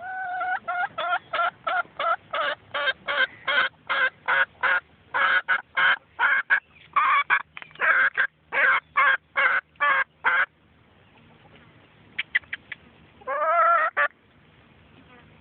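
Chicken calling in a long string of short, loud squawks, about three a second, which stops abruptly after about ten seconds. After a pause come a few quick short calls and one longer drawn-out call near the end.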